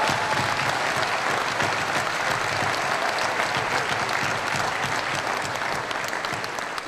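Audience clapping steadily, tapering off near the end.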